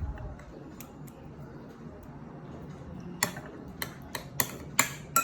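Sharp clicks and light knocks of kitchen utensils and dishes being handled: one about a second in, then several in quick succession from about three seconds on, over a low steady hum.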